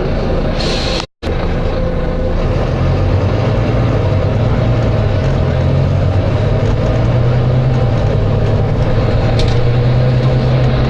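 Volvo B9TL bus's six-cylinder diesel engine running, its note rising and growing louder about three seconds in as it works harder. There is a short burst of air hiss from the air system just under a second in, and a brief faint hiss near the end.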